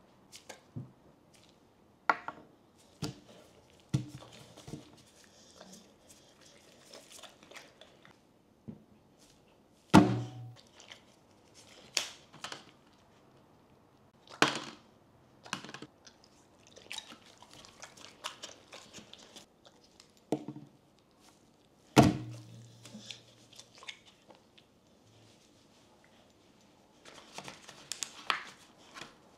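A dog chewing blueberries in short wet bouts, between separate taps and thunks of a clear plastic punnet and gloved hands on the tabletop; two of the thunks, about ten and twenty-two seconds in, are much louder than the rest.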